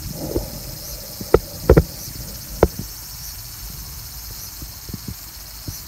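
A few short, sharp knocks, the first about a second and a half in and the last near three seconds in, over a low rumble and a steady high hiss.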